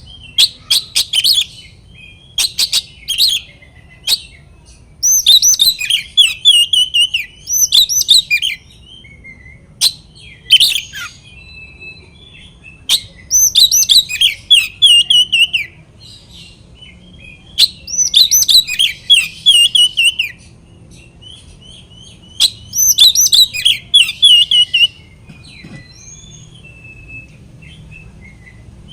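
Oriental magpie-robin singing loud, rapid, varied phrases in bursts of one to three seconds with short pauses between, with sharp clicks among the notes: the fired-up, territorial song of a bird seeking a rival.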